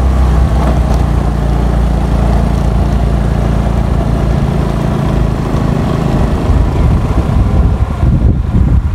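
A motorbike's engine running steadily as it rides up the road, with wind noise on the microphone; the engine hum eases off near the end.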